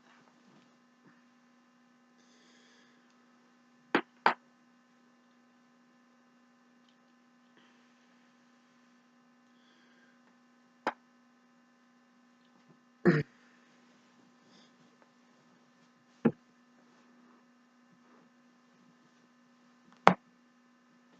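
Joints being cracked: six sharp pops several seconds apart, the first two close together, one a short crunching run of small cracks. A steady low electrical hum runs underneath.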